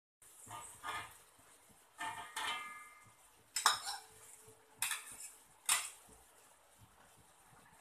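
Metal spatula and spoon scraping and clinking against a steel wok and a bowl of chili paste during stir-frying. A few ringing scrapes come first, then three sharp clinks about a second apart.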